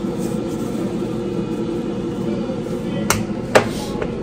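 Two sharp clanks about half a second apart near the end, the second louder, as a lid is set on a cooking pan. A steady low hum runs underneath.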